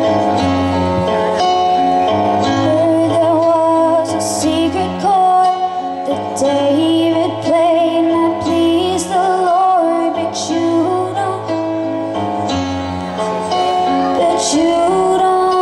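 Song accompaniment of held chords changing every second or two, with a woman's voice singing a slow, wavering melody over it from a few seconds in.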